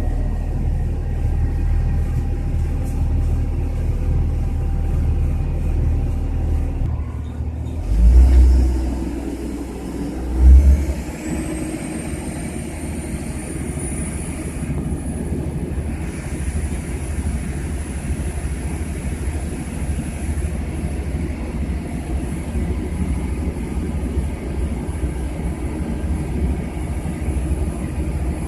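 EMC40 rail maintenance draisine running along the track with a steady low rumble. Two heavy low thumps come about eight and ten seconds in; then a high whine rises in pitch for a few seconds and holds steady.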